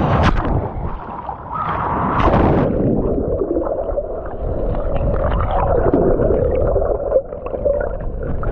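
Ocean surf heard underwater through a submerged camera microphone. A breaking wave washes over the camera with a loud rush at the start, then a muffled, gurgling underwater wash of moving water.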